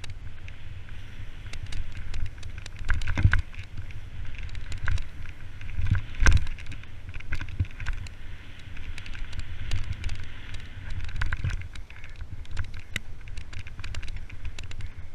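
Mountain bike descending a dirt forest trail fast: wind rushing over the camera microphone and tyres running on dirt, with frequent clicks and rattles of the bike over the rough ground and heavier knocks about three and six seconds in.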